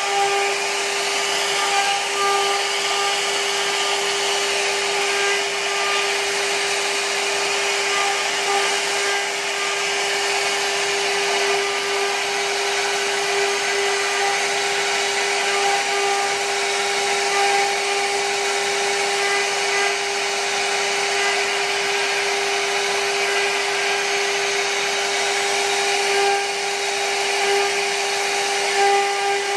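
CNC router spindle running at a steady high whine while its small bit carves a relief pattern into wood, with the rough rasp of the cut over it.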